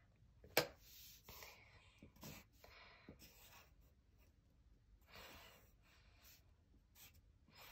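Pencil drawing on paper: faint, short scratching strokes as lines are sketched, with a sharp tap about half a second in.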